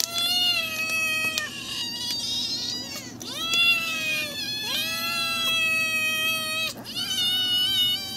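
Several hungry stray cats meowing, about five long drawn-out meows of a second or two each, some overlapping, as they beg for food.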